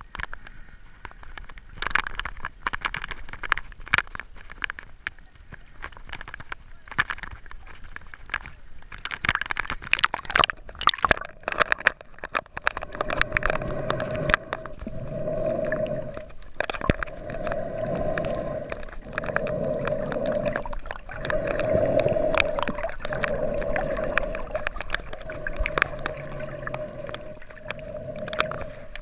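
Water sloshing and splashing against a waterproof camera housing at the surface, full of sharp clicks. About halfway through the camera goes under, and the sound turns muffled: a steady underwater hum that swells and fades every second or two.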